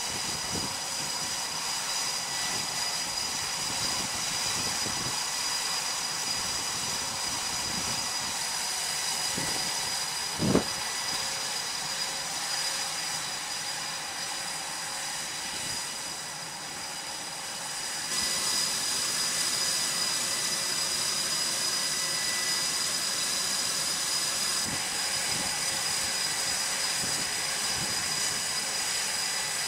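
F/A-18F Super Hornet's twin General Electric F414 turbofan jet engines running steadily with a high whine. A single sharp knock sounds about ten seconds in. The engine noise dips slightly, then comes back a little louder at about eighteen seconds.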